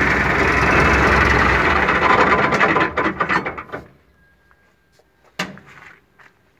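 MTZ-80 tractor's D-240 diesel engine running, then stopping about three seconds in, its strokes slowing and dying out within about a second. A single knock follows a couple of seconds later.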